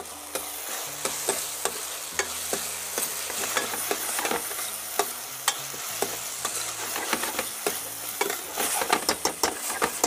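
Cubed capsicum and onion sizzling in a sauce-coated pan over a high flame while being stirred, with a steady hiss and sharp clicks of the utensil against the pan. The clicks come quicker near the end.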